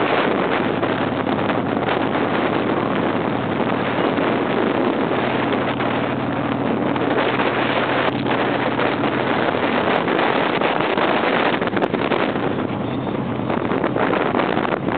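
Wind rushing over the microphone on a motorcycle riding at about 70 mph, with the bike's engine running steadily underneath.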